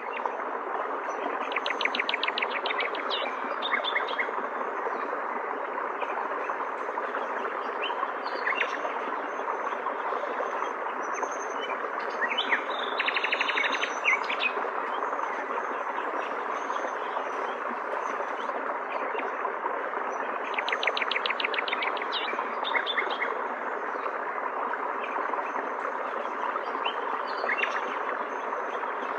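Steady rush of flowing stream water with birds singing over it: a rapid trilled phrase near the start, again around the middle and about two-thirds of the way through, with scattered short chirps between.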